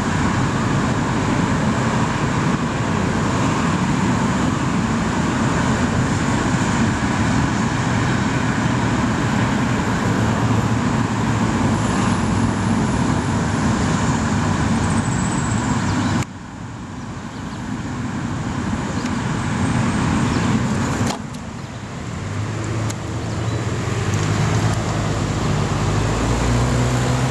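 Road traffic passing steadily: a continuous wash of tyre and engine noise from cars. The sound drops suddenly twice and builds back up, and near the end a car passes close with a low engine hum.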